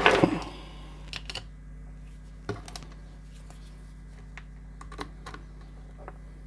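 Small, sharp clicks and taps, scattered a second or more apart, from wires being worked into the screw terminals of an LED splitter and controller with small tools on a bench.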